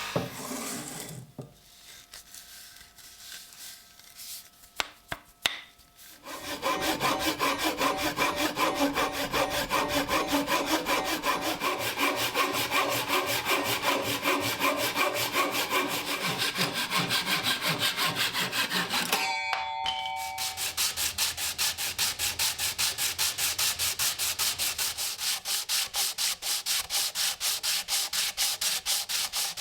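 Hand sanding on wood, with rapid back-and-forth rubbing strokes at about three a second. A few light clicks come first, the strokes begin about six seconds in, and they stop briefly with a couple of clicks about two-thirds of the way through before starting again.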